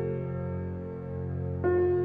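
Slow, soft background music: long held keyboard notes over a steady low drone, with a new note coming in near the end.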